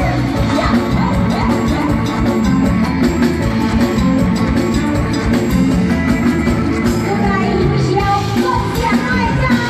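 Amplified live band music with a steady drum beat, and some singing.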